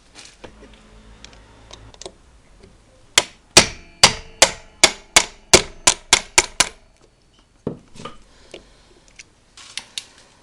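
A quick series of about ten sharp metallic knocks, roughly three a second, each ringing briefly, like hammer blows. A few fainter knocks and clatters come before and after.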